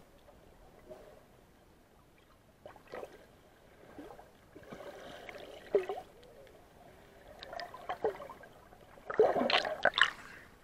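Muffled underwater sound picked up by an action camera's waterproof housing submerged in the sea: quiet water movement with scattered gurgles and bubbling. A louder burst of splashing comes near the end as the camera breaks the surface.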